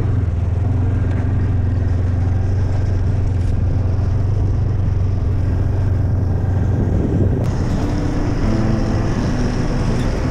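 Snowmobile engine running steadily as the sled travels over snow, heard close from the sled itself.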